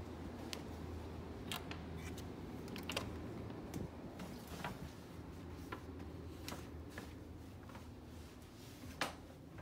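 Scattered light clicks and knocks as a hotel room door is opened and walked through, with one sharper knock near the end, over a steady low hum.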